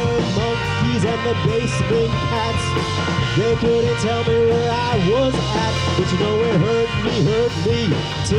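Indie rock band playing live: two electric guitars, electric bass and a drum kit, with a male lead vocal.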